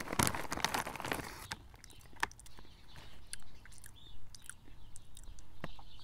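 A person chewing crunchy puffed prawn chips. The crunching is dense for about the first second and a half, then thins out to scattered small crunches and clicks.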